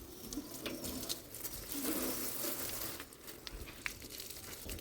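Pigeons cooing in low calls, with a few light taps and clicks between them.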